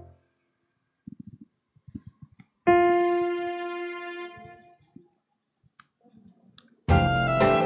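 Keyboard music in a lull between phrases: one held chord comes in about three seconds in and fades away, and fuller playing starts again near the end.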